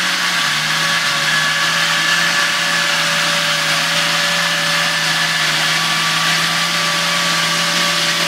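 Electric off-road winch motor running steadily under load, a constant whine whose pitch dips slightly about half a second in as the load comes on.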